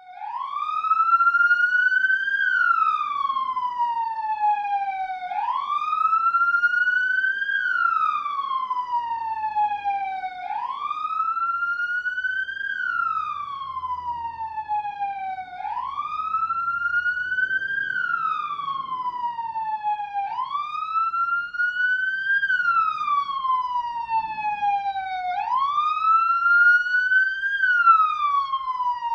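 Police siren wailing, its pitch sliding slowly up and then down again about once every five seconds.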